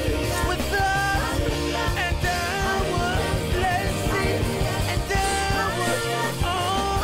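Music with singing: a voice sings over instruments and a steady bass line.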